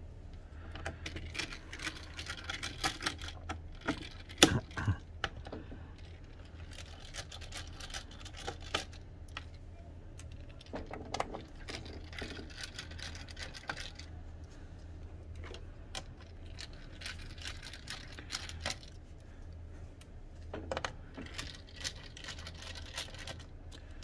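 Small Phillips screwdriver turning screws in a laptop's plastic bottom cover: scattered light clicks and short scrapes of the driver tip on the screw heads and case, the sharpest click about four and a half seconds in. A steady low hum runs underneath.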